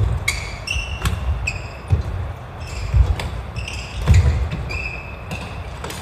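Badminton rally: rubber-soled court shoes squeaking on the wooden gym floor, sharp racket strikes on the shuttlecock and heavy footfalls as the players lunge.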